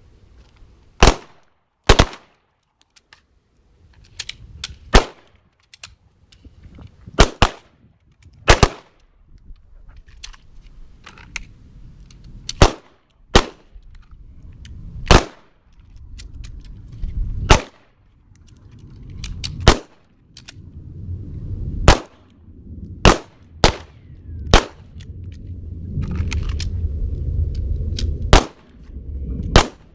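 Pistol shots from several shooters firing a timed drill: single sharp cracks at uneven spacing, some in close pairs, with pauses between for reloads.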